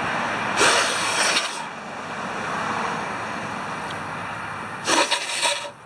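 Two short blasts of compressed air from a blowgun, each about a second long, one about half a second in and one near the end, blown through the air horn's passages to clear them.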